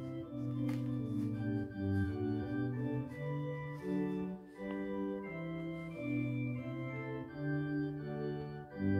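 Organ playing a slow tune in held chords that change every second or so, with brief breaks between phrases.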